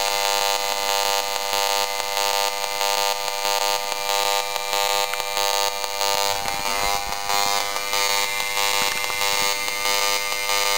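An HF meter's loudspeaker gives a steady, loud, rasping buzz: the audio rendering of the pulsed radio signal from a cordless phone system's base station, switched back on. The buzz means a strong pulsed high-frequency field is present.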